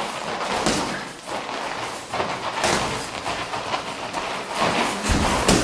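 Irregular thumps and scuffs of kickboxing sparring: feet moving on a padded mat and gloved blows, with the heaviest thumps near the end.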